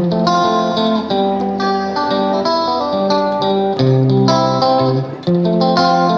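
Background music led by guitar, picking out a rhythmic pattern of notes.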